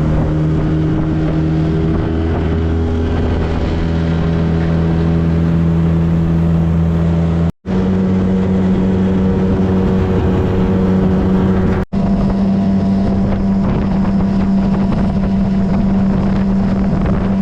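Small boat's outboard motor running steadily with the boat under way. The sound drops out briefly twice, and after the first break the engine note is a little higher.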